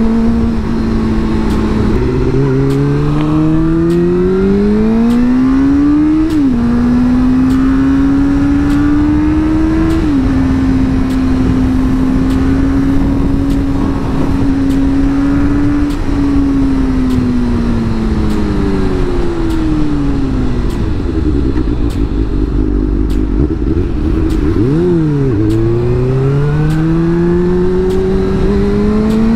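Suzuki GSX-R 600 K4's inline-four engine pulling through the gears. Its pitch climbs and drops at two upshifts in the first ten seconds, then holds steady and falls as the bike eases off and slows. A short rev blip comes about 25 seconds in, then the pitch rises again as it accelerates, with wind rushing over the helmet-mounted microphone.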